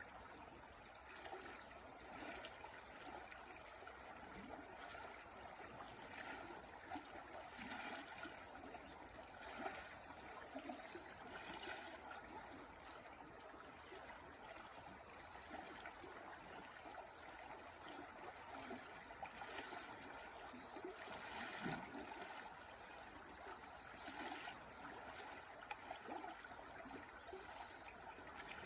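River water flowing: a faint, steady rush and trickle with a few brief louder surges.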